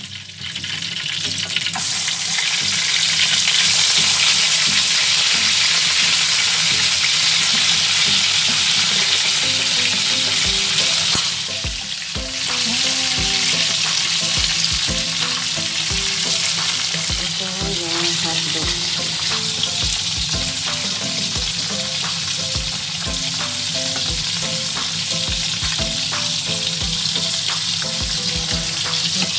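Tuyo (dried salted fish) frying in hot oil in a frying pan, a steady sizzle that dips briefly about twelve seconds in.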